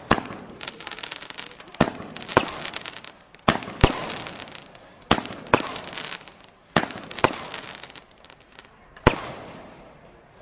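Consumer fireworks set firing shot after shot: about ten sharp bangs, half a second to a second and a half apart, with crackling between them, the last bang about nine seconds in.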